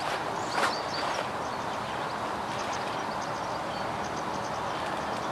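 Steady outdoor background hiss with faint high bird chirps, and a short handling sound about half a second in as the fish is lifted.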